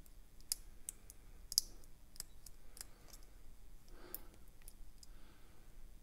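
Medium hook pick and tension wrench clicking faintly in the pin-tumbler lock of a 1950s Russian padlock during single-pin picking: a dozen or so small, irregular clicks, most in the first three seconds, as the stiff, dry pins are worked.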